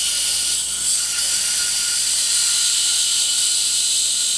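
A 2x72-inch Coote belt grinder running, its abrasive belt grinding a knife blade pressed against the slack part of the belt to thin the blade: a steady hiss with a thin, even whine.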